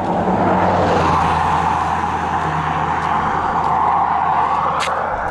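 A motor vehicle driving along the road: steady tyre noise over a low engine hum, swelling over the first second and then holding.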